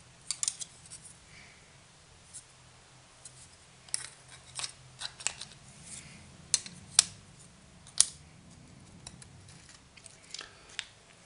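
Thin carbon-fibre frame plates of a Robocat 270 quadcopter kit clicking and clacking against each other and the table as they are handled and set down, with scattered sharp ticks, the loudest about seven and eight seconds in, over a faint steady hum.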